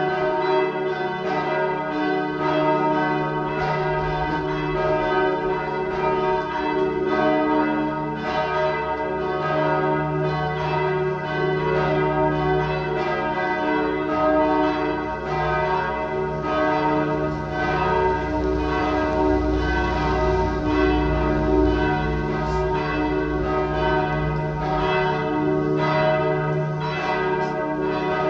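Church bells pealing: several bells struck again and again, their tones ringing on and overlapping in a steady, continuous peal.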